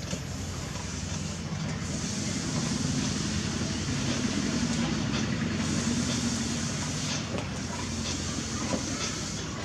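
Potter's wheel turning with a steady low hum and hiss, while a wet sponge presses against the base of a spinning clay jar. The sound swells slightly through the middle and then eases back.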